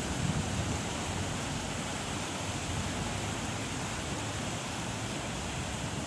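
Wind blowing through palm fronds and bushes, a steady rushing hiss, with a short gust buffeting the microphone near the start.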